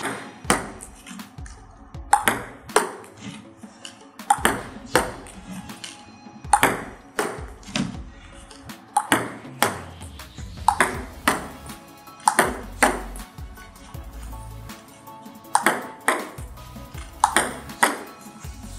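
Table tennis backhand serves: a plastic ball clicking sharply off the rubber-faced paddle and bouncing on the table. A pair of clicks comes about every two seconds as each serve is hit.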